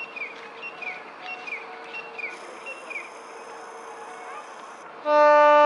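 Birds chirping in a short falling call repeated a few times a second, with a high insect-like buzz joining about two seconds in. About five seconds in a diesel locomotive horn sounds, loud and steady, far louder than the birds.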